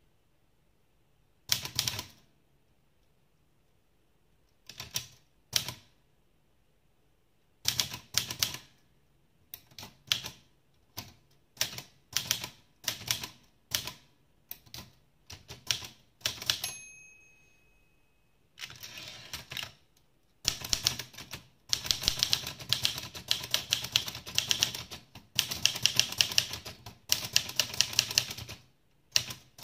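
Olivetti Lettera 32 manual typewriter being typed on: slow, scattered key strikes at first, then the margin bell rings once about two-thirds of the way in, followed by a brief carriage return. After that comes a run of fast, steady typing on the freshly restored machine.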